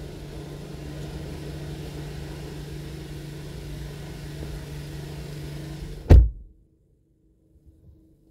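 A steady low hum, then a car door slammed shut about six seconds in. The outside hum cuts off as the door seals the cabin.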